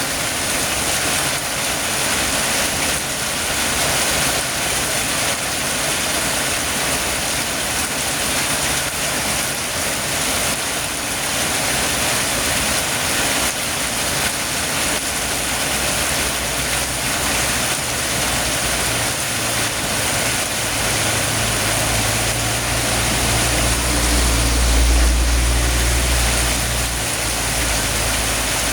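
Heavy rain falling in a steady, dense hiss. From about twenty seconds in, a low rumble rises under it, strongest a few seconds later, then cuts off near the end.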